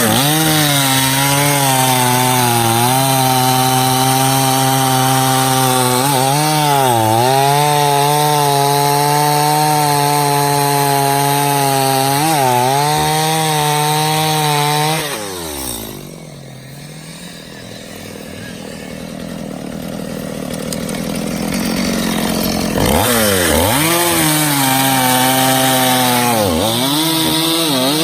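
Stihl two-stroke chainsaw at full throttle cutting black locust logs, its revs dipping briefly under load several times. About halfway through it drops to idle for several seconds, then revs back up and cuts again.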